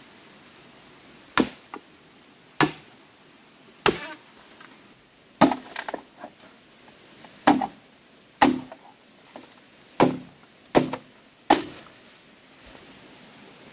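Machete chopping bamboo: about nine sharp woody strokes, roughly a second apart, some landing in quick pairs.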